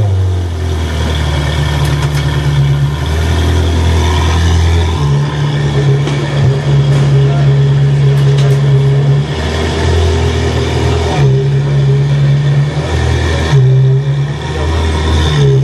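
Ferrari F430 Scuderia's V8 idling steadily while parked, its pitch stepping up and down between two settled speeds several times.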